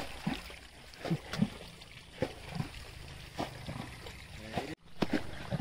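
Wet mud squelching and water sloshing as hands dig and grope through a shallow muddy channel, in a run of short, sudden squelches.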